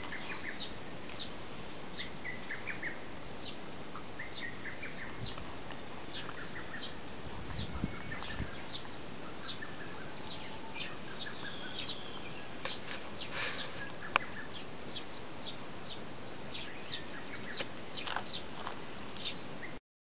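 Small birds chirping outdoors: many short, high chirps over a steady background hiss, with a brief low rumble about eight seconds in. The sound cuts off near the end.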